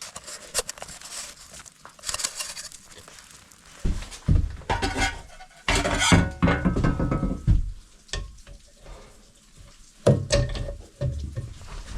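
Camp cookware and utensils clinking and scraping as dishes are cleaned after a meal, with irregular clicks and short scrubbing bursts. Heavier bursts of low thumping handling noise come about four to seven seconds in and again near the end.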